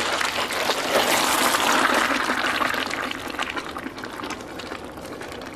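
Molten metal pouring out in a broad stream onto a sand bed: a steady rushing hiss peppered with small crackles, loudest about a second in and easing off after about three seconds.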